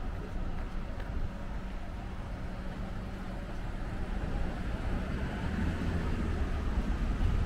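City street traffic: a steady wash of road noise with a low rumble that grows louder near the end.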